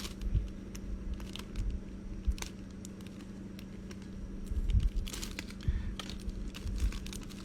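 Toy packaging being opened by hand: scattered crinkles, rustles and small clicks of plastic and card, with a busier stretch about five seconds in, over a low steady hum.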